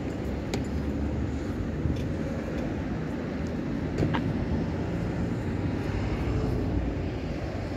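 Steady low rumble of town traffic, with a few short faint clicks.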